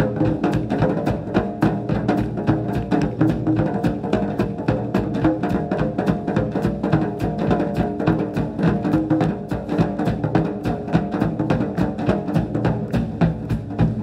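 Japanese taiko drums played in an even, driving beat of about three strokes a second, over sustained pitched tones.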